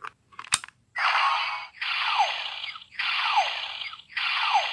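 Legend Hero Ganwu Changer DX toy: a sharp plastic click as a Hero Piece is seated, then its speaker starts a looping electronic sound effect. Each loop is a harsh burst with a falling sweep inside, repeating about once a second.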